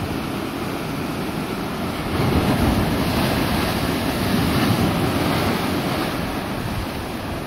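Ocean surf surging into a narrow inlet in black lava rock, rushing and breaking into white water. A bigger surge builds about two seconds in and eases off near the end.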